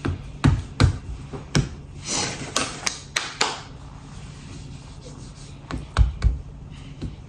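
Irregular sharp knocks and taps of metal cookie cutters and a spatula on a stone countertop while cookie dough is cut, with a few short rustles in between.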